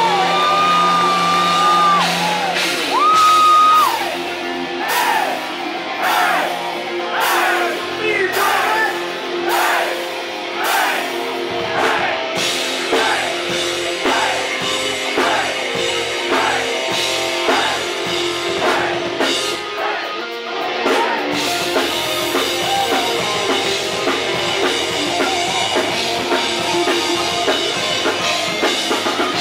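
Heavy metal band playing live: loud electric guitars over bass and drums. Long high held notes in the first few seconds give way to a fast repeating run of falling notes that lasts until about two-thirds of the way through.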